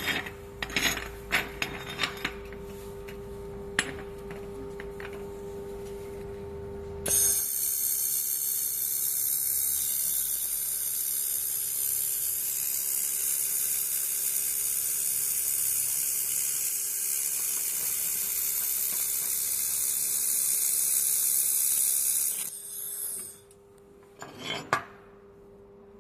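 Fiber laser welding machine welding iron: about seven seconds in, a loud, steady high hiss starts and runs for about fifteen seconds before cutting off suddenly. Before and after it come scattered metallic clicks and knocks over a steady machine hum.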